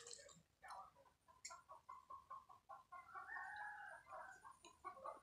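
Chickens clucking faintly in a series of short calls, with one longer drawn-out call about three seconds in.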